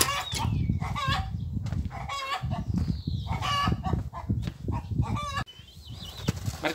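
Chickens clucking and cackling, about a dozen short calls, over a low rumble. After a cut near the end the rumble drops away, leaving a few faint high chirps.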